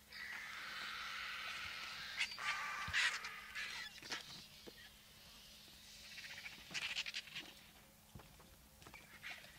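A flock of White-backed Vultures squabbling over a carcass: a sustained hissing, broken by harsh rasping calls at about two to three seconds in and again around seven seconds.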